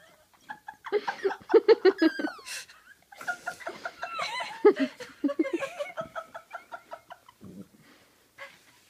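Puppy growling and yapping in rapid chattering runs, guarding the lap it sits in against another puppy; the runs stop about seven seconds in.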